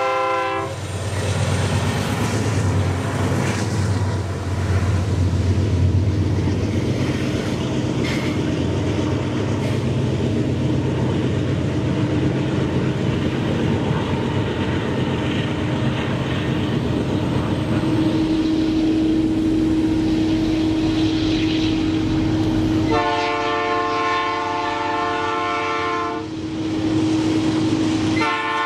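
Heavy freight train passing close by: the diesel-electric locomotives' engines rumble low as they go past, then the loaded covered hopper wagons roll by with a steady running noise and a thin steady whine. A locomotive air horn sounds for about three seconds some 23 seconds in, and again briefly at the very end.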